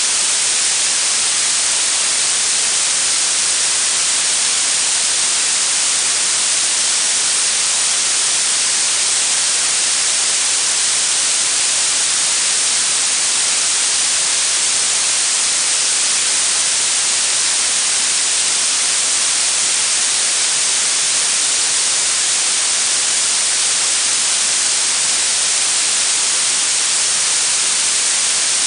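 Synthetic blue noise: a steady, even hiss weighted toward the high frequencies, like a fine spray.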